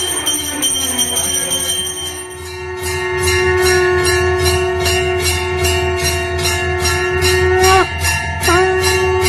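Temple bells ringing, which turn about two and a half seconds in into a fast, steady clanging of about three or four strokes a second. Under them runs a long held wind note that breaks off briefly near the end and comes back.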